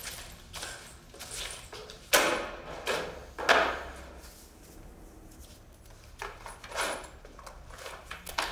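A few short thuds and rustles as a shoulder bag is set down on a wooden desk, the loudest three close together a couple of seconds in, then softer cloth rustling as a shirt is taken off.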